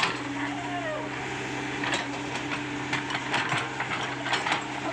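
Komatsu PC75UU excavator's diesel engine running with a steady hum, with scattered short knocks and clanks.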